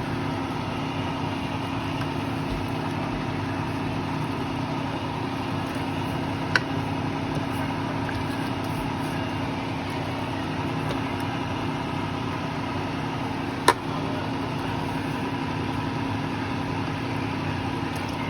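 Steady background hum of a motor or fan, broken twice, about seven seconds apart, by a sharp clink of a utensil against the rice cooker pot.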